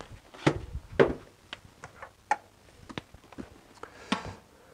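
Motorcycle helmets being handled and swapped on a display stand: a series of light knocks and clicks of the hard helmet shells being picked up and set down, several in the first three seconds, the sharpest about a second in.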